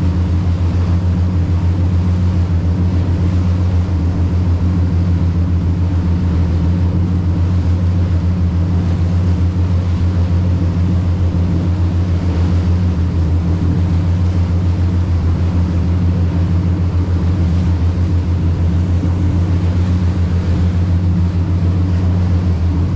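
Boat engine running steadily under way with a constant low drone, over the rush of the churning wake.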